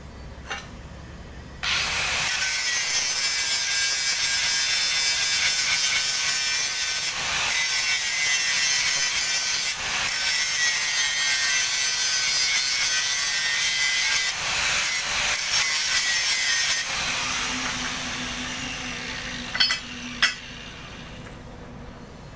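Angle grinder running against steel plate: a loud, steady high-pitched grinding that starts sharply, dips briefly a few times, then fades as the disc spins down, followed by two sharp metallic clicks near the end.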